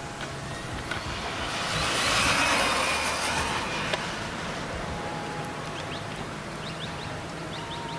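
Electric 1/10-scale RC short-course truck on a 3S lipo speeding past at full throttle: a hiss with a faint motor whine that swells for a couple of seconds and fades away.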